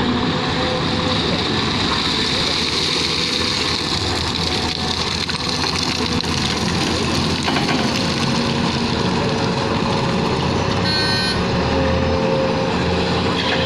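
JCB 3DX Xtra backhoe loader's diesel engine running steadily as the machine works, with a brief high-pitched tone about eleven seconds in.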